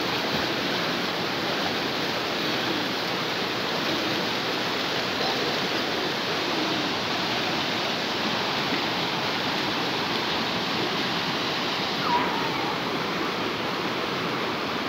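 Fast river water running over rocks in shallow rapids, a steady, unbroken rush.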